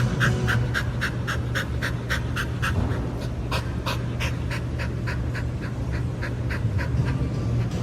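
Dog panting rapidly, about four breaths a second, over a steady low hum.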